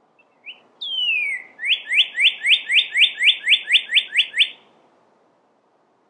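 Northern cardinal singing. A short opening note leads into one long falling whistle, then a quick run of about a dozen short rising whistles, about four a second. This is the spring song that advertises for a mate.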